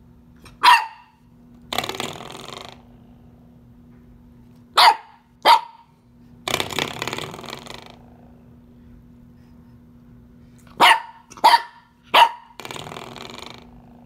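Corgi puppy barking in short, sharp yaps: one bark near the start, two about five seconds in and three quick ones about eleven seconds in. Each group is followed by about a second of rougher, longer sound.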